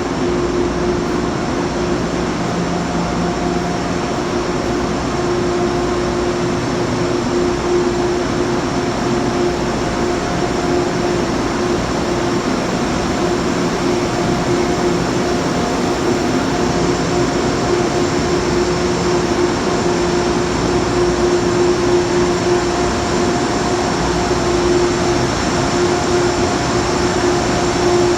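Metro-North commuter trains standing at the platform, a steady mechanical hum with a constant low tone and a faint high whine from their onboard equipment.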